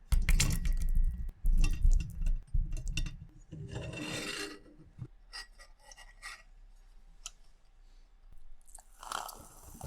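Rasping and rubbing with clicks and low thuds, loudest in the first three seconds, then scattered quieter clicks and a brief rustle near the end.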